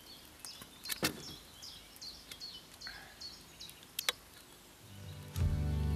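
A small bird chirping with short, repeated high notes, with two sharp knocks about a second in and about four seconds in. Music starts near the end.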